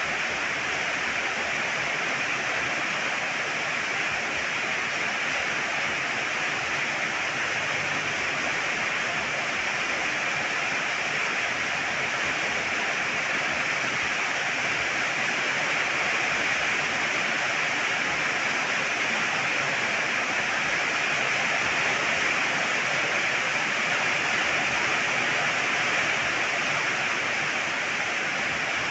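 Heavy rain pouring steadily, an even unbroken hiss.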